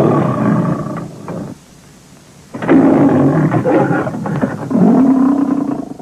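Custom werelion roar sound effect, mixed from lion and other big-cat roars: one roar that trails off about a second and a half in, then a longer second roar from about two and a half seconds in that swells again near the end before fading.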